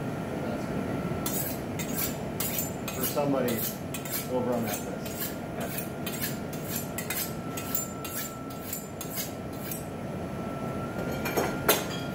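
Metal clinking and scraping in a quick series of short strokes, two or three a second, with a few short squeaks early on and a faint steady hum throughout.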